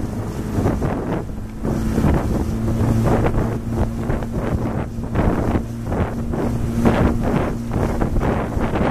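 Wind buffeting the microphone in irregular gusts over the steady low hum of a motor launch's engine running at cruising speed.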